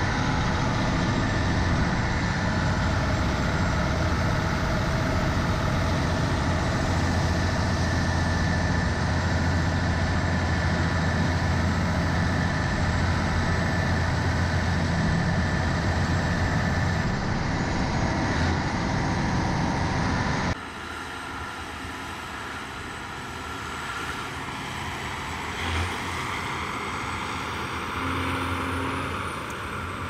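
Diesel engines of large John Deere four-wheel-drive tractors running steadily under load while pushing and packing chopped corn silage with push blades. About two-thirds of the way in the sound drops suddenly to a quieter, more distant engine sound with some wind.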